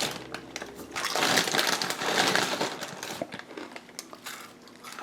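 Irregular crinkling and rustling handling noises in uneven bursts close to the microphone, fading near the end.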